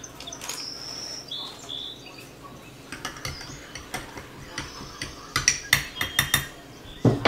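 Rolled oats poured from a plastic bag into a ceramic bowl, then a metal spoon stirring them into soy milk and chia seeds, clinking sharply against the bowl several times in the second half.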